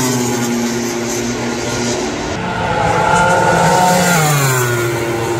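Two MotoGP race bikes pass one after another at speed. Each engine's high-revving note drops in pitch as it goes by.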